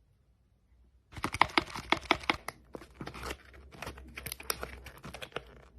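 Plastic packaging crinkling and crackling in quick irregular clicks as it is handled, starting about a second in.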